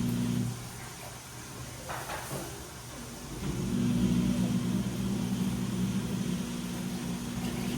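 Washing machine motor humming as the drum turns. The hum stops about half a second in, with a brief soft swish in the pause, then starts again about three and a half seconds in, the drum turning back during the wash cycle.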